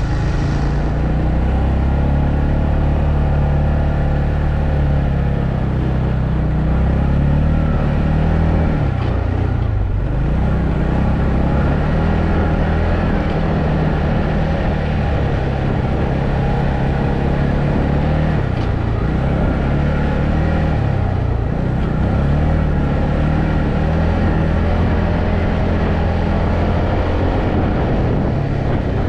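ATV engine running while riding, its pitch dropping and climbing back a few times as the speed changes.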